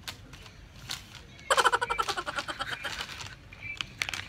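A man's brief, pulsing, stifled laugh starting about a second and a half in and lasting about two seconds, with a few small clicks and rustles around it.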